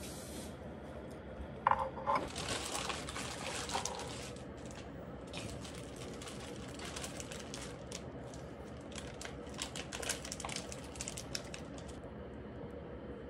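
Kitchen handling sounds: a short ringing clink about two seconds in, then on-and-off scraping and rustling with small clicks, over a faint steady hum.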